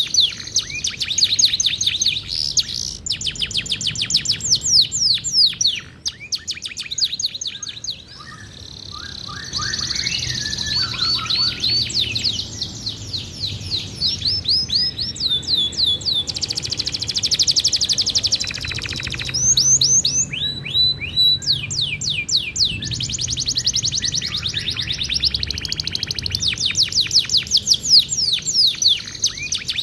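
Domestic canary singing a long song of rapid trills and quickly repeated falling high notes, changing phrase every few seconds, with a short pause about six seconds in.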